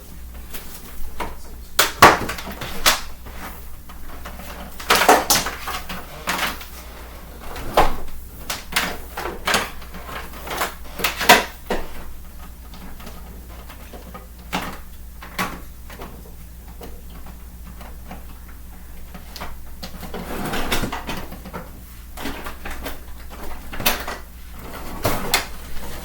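Irregular knocks and clatter of things being handled and set down, loudest about two, five, eight and eleven seconds in, over a faint low hum.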